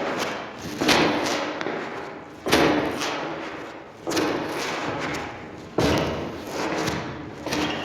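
Hard-soled shoes stepping slowly on a wooden floor, five heavy steps at an even pace of about one every second and a half to two seconds. Each step has a lighter knock just before it and a short ringing echo after it.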